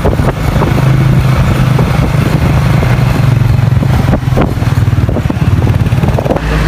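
Motorcycle engine running steadily as the bike rides along a road, heard from on the bike.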